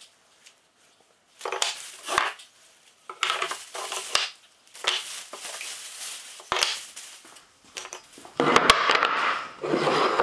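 A black plastic garbage bag rustling and crinkling in bursts as wooden blocks are pulled out of it, with the blocks knocking down onto a wooden workbench top. Near the end the sound is loudest, with a couple of sharp knocks, as the blocks are laid out and slid together on the bench.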